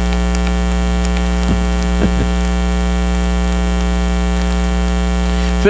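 Steady electrical mains hum in the microphone and sound-system feed: an unchanging low buzz with many evenly spaced overtones.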